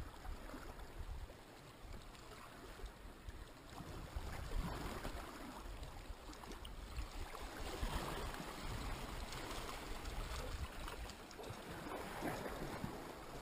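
Small sea waves washing and splashing against rocks, swelling and easing every few seconds, with wind rumbling on the microphone.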